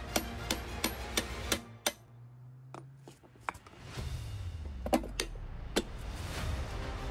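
Hammer driving a steel chisel into a safe's metal inner compartment: a rapid run of about five metal-on-metal blows, about three a second, then a pause, with a few more sharp knocks later on.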